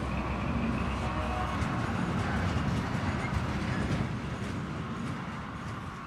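HO-scale model passenger train running on the layout track: a steady rumble of wheels and motor that fades after about four seconds as it moves away.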